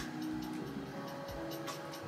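Background music with a steady beat: held notes over low thumps and light, evenly spaced ticks.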